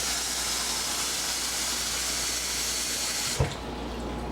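Kitchen tap running water into a cup, a steady hiss that shuts off about three seconds in with a short knock.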